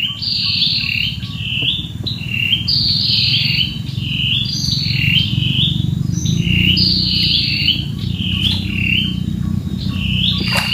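A bird calling over and over in quick, high chirping phrases, with a steady low rumble underneath.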